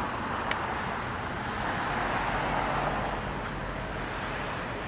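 Road traffic noise: a steady hiss of passing cars, swelling as a vehicle goes by about two seconds in.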